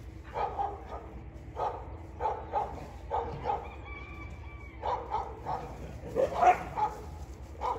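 Dogs play-fighting, giving short barks in quick pairs and clusters. The loudest come about six and a half seconds in.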